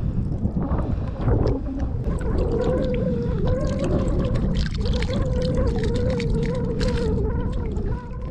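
A steady mechanical whine, wavering slightly in pitch, over low wind and water noise; it drops out briefly about halfway through.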